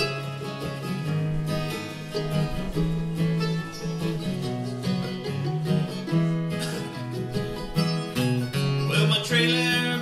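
Acoustic guitar and mandolin playing a country-bluegrass tune, with plucked notes over a steady rhythm.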